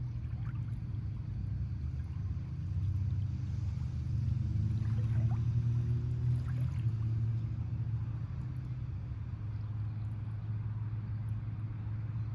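Motorboat engine running steadily at low speed. It grows louder about three seconds in and eases off a little after the middle.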